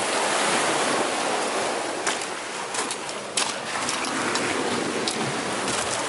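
Sea waves breaking and washing over a rocky shore, a steady rush of surf that swells in the first second, with a few short sharp clicks.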